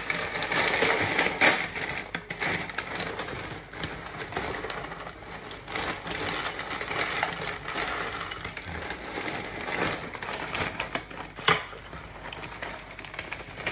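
Plastic cereal bag crackling and dry cereal pieces rattling into a ceramic bowl, with a spoon clinking in the bowl near the end.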